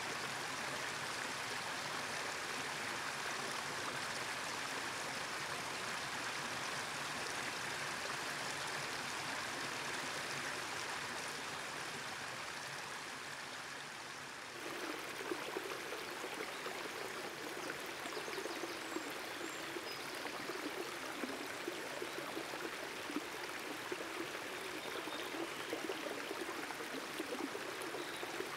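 Creek water running over rock ledges in small cascades: a steady rush of moving water. About halfway through the sound changes abruptly to a fuller, lower rush with small splashes.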